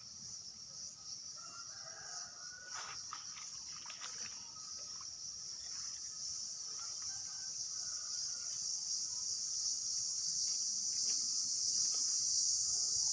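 Steady high-pitched insect chorus that grows louder, with a few faint bird calls and clicks in the first few seconds.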